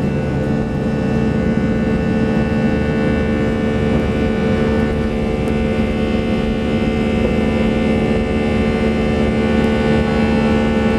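Airbus A319's turbofan engines at takeoff thrust, heard inside the cabin, as the jet finishes its takeoff roll and lifts off: a steady loud engine noise with several steady whining tones, growing slightly louder.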